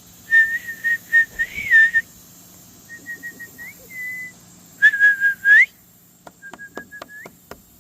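A person whistling to call alligators: four runs of short, quick, repeated notes at one pitch, each run ending in a rising note.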